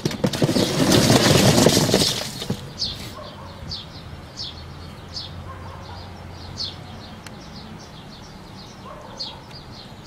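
Whole oranges and lemons poured from a plastic bucket tumble into a barrel composter with a loud clattering rush for about two and a half seconds. After that, a small bird chirps again and again with short high notes.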